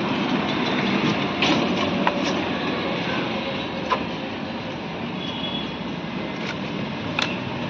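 Steady road traffic noise, with a few light clicks scattered through it.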